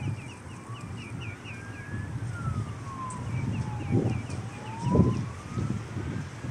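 A siren wailing, its pitch rising and falling slowly, each sweep up and down taking about four seconds. Over it come rows of quick high chirps, and wind gusts on the microphone.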